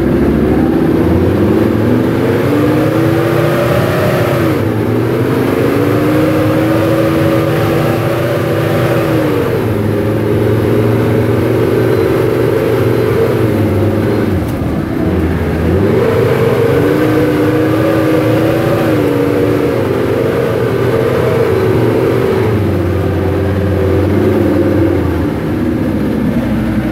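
Hägglunds tracked fire suppression carrier's engine driving under load, its pitch rising, holding and dropping several times as the engine speed goes up and down.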